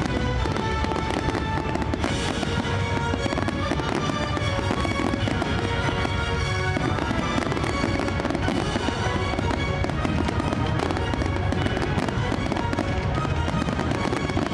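Fireworks display: a dense, continuous crackling and popping of aerial shells, with music playing alongside.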